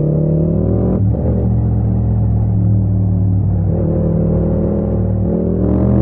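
Music with a steady, heavy bass line, laid over the sound of a Yamaha MT-07's parallel-twin engine pulling in third gear as the bike accelerates.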